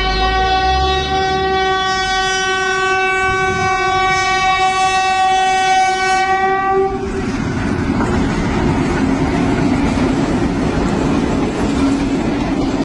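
Train horn sounding one long, steady, single-note blast that cuts off about seven seconds in, followed by the loud rumble and clatter of the moving train.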